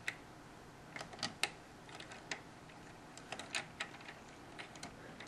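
Light, irregular plastic clicks and taps of LEGO pieces as fingers fit a minifigure into the cockpit chair inside the LEGO 9515 Malevolence: a dozen or so scattered faint clicks.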